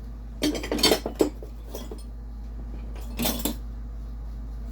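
Loose metal tools and hardware clinking and clattering against each other as they are rummaged through: a cluster of knocks about half a second to a second and a half in, and another brief clatter a little past three seconds.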